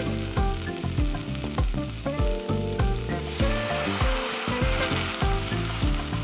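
Background music with a steady beat. From about three seconds in, a sizzling hiss of raspberries cooking with water and sugar in a hot pot rises under it.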